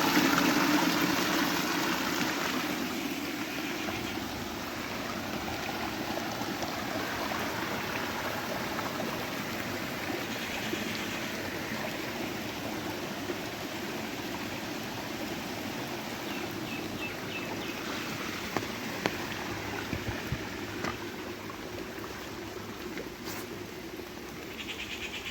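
River water flowing: a steady rush that eases a little over the first few seconds.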